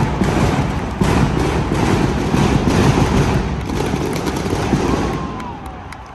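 Pyrotechnics going off in an arena: a loud, dense crackle of rapid pops that dies away near the end.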